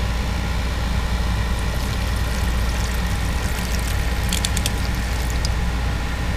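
Air conditioner running with a steady low hum, while water is poured from a jug into a plastic reservoir bucket, splashing from about two seconds in until about five and a half seconds in.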